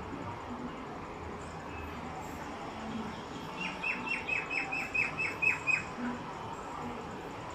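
A bird chirping: a quick run of about nine short, falling high notes, roughly four a second, about three and a half seconds in, over a steady background hiss.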